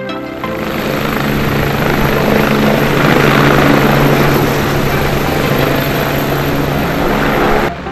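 Eurocopter EC155 helicopter with Turbomeca Arriel turboshaft engines in flight: a dense rush of turbine and rotor noise over a steady low hum, with background music underneath. It cuts off abruptly near the end.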